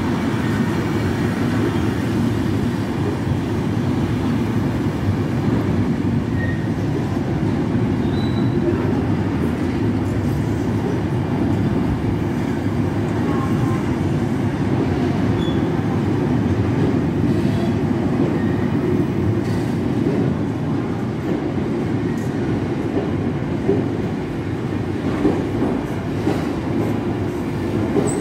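Freight train of car-carrier wagons rolling past along the platform: a steady rumble of wheels on rail, with a few brief faint wheel squeals and some sharp clicks near the end.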